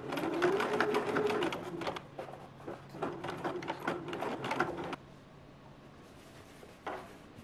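Bernina B 325 sewing machine stitching through the thick seam of a folded trouser hem. It runs in two spells of about two seconds each with a short pause between, stops about five seconds in, and gives a single click near the end.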